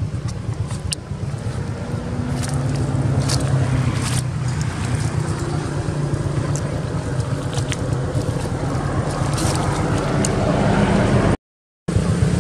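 A motor engine running steadily as a low hum, with scattered small clicks and scrapes over it. The sound cuts out for about half a second near the end.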